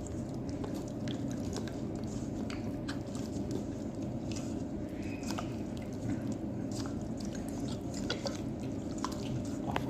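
Hands mixing raw chicken pieces with oil, tomato paste and spices, giving a run of small wet squelches and clicks over a steady low room hum.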